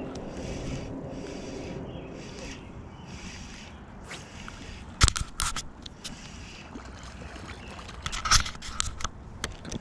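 Fishing reel being cranked on a retrieve: a scratchy whir that comes in short bursts about twice a second. Sharp clicks and knocks follow about halfway through and again near the end.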